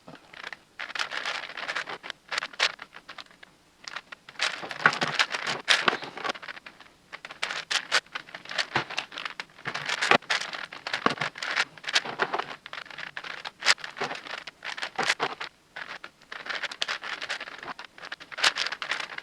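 10x10x10 Rubik's cube being turned by hand: rapid clicking and rattling of plastic layers and pieces in bursts of turns with short pauses.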